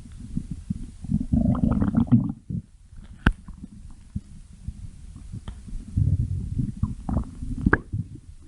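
A person's stomach growling: irregular low rumbles and gurgles, in two louder stretches about a second in and again around six seconds in, with a couple of sharp pops.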